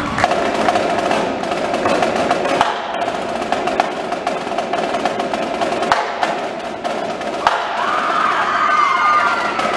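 Indoor drumline playing fast snare-drum rolls and rhythms with the battery and front ensemble. About seven and a half seconds in, gliding pitched tones that rise and fall come in over the drumming.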